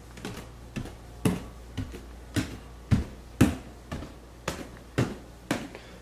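Footsteps climbing a flight of stairs, a steady rhythm of thumps about two a second.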